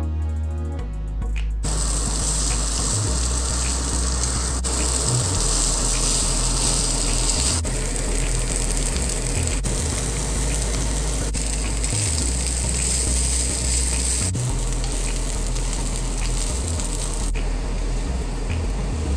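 Rice stir-frying in a hot pan, sizzling with a steady hiss that breaks off briefly several times, over a low hum.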